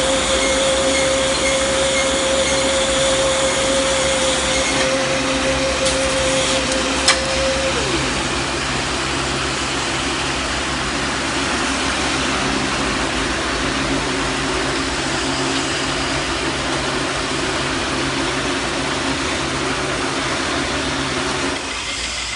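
Silage baler machinery running under test: a steady loud mechanical noise with a low hum. A high whine runs for the first several seconds, then falls away about eight seconds in, just after a single sharp click.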